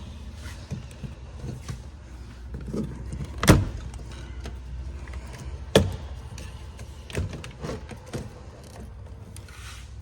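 Plastic trim cover of a Suburban's interior door handle being pried off, its plastic retaining tabs popping loose in sharp clicks: two loud snaps a couple of seconds apart, then a few softer clicks, over a low steady hum.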